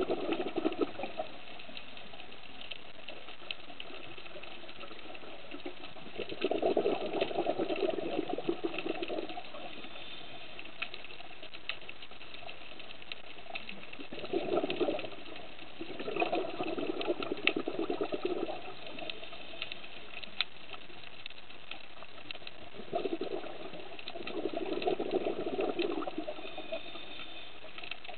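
Scuba regulator breathing underwater: three spells of bubbling exhalation a couple of seconds long, about every eight seconds, over a steady faint crackle of small clicks.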